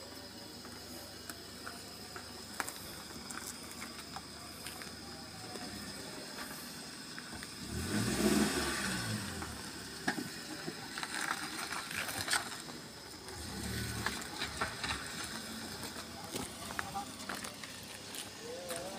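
A motor vehicle passes close by about eight seconds in, its pitch sliding as it goes, and a second, fainter one passes around fourteen seconds in. Between them are a steady hiss and scattered small clicks.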